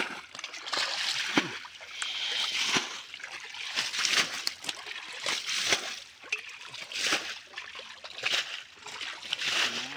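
Irregular splashing and sloshing in shallow muddy water, from snakehead fish thrashing and being grabbed by hand.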